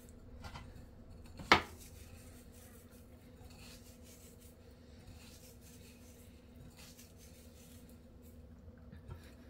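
Chicken drumsticks being coated in breadcrumbs: faint rustling and rubbing, with one sharp clink of a utensil against a dish about a second and a half in. A low steady hum runs underneath.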